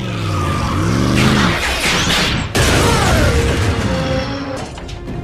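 Cartoon robot fight soundtrack: dramatic music mixed with mechanical whirring sound effects that glide down and up in pitch, and a heavy impact about two and a half seconds in.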